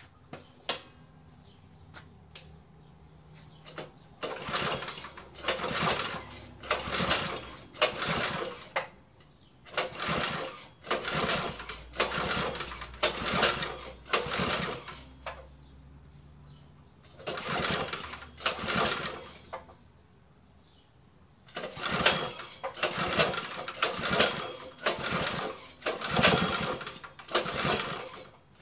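196 cc single-cylinder Baja mini bike engine, fitted with a Tillotson fuel-injection carburettor, idling and being blipped on the throttle in short revs about once a second, in several runs with idle pauses between them. It runs smoothly.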